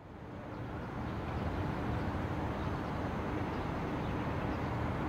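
City street ambience: a steady low rumble and hiss of traffic, fading in over about the first second.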